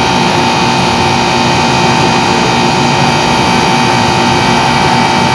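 Air conditioner's outdoor unit running continuously, compressor on, with a loud steady hiss and a steady tone as the refrigerant charge is topped up.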